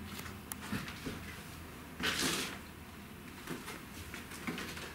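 Footsteps and small knocks on a bare wooden floor, with a brief scuffing rustle about two seconds in.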